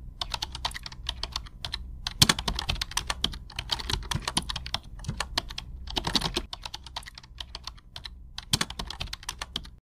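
Computer keyboard typing: quick, irregular key clicks in runs with short pauses, stopping abruptly near the end. A faint low hum sits underneath.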